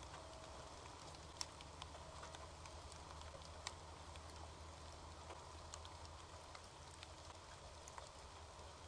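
Near silence: faint outdoor ambience with a steady low hiss and scattered small ticks and clicks, two of them a little louder, about a second and a half in and nearly four seconds in.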